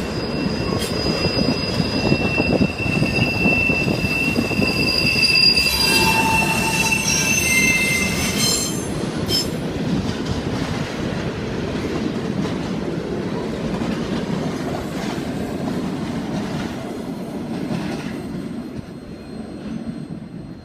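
Railroad cars of a Norfolk Southern work train rolling by, the wheels squealing in high, steady tones for the first eight seconds or so over a continuous rumble and rail clatter. After that the rumble goes on alone and fades near the end.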